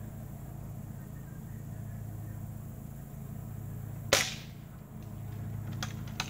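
A Pumpmaster multi-pump pellet-and-BB air rifle firing once, a single sharp crack about four seconds in.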